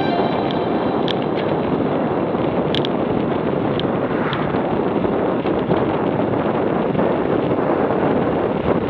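Steady rush of wind buffeting the camera microphone on a road bike riding at about 40 km/h, mixed with road noise. There are a few faint ticks.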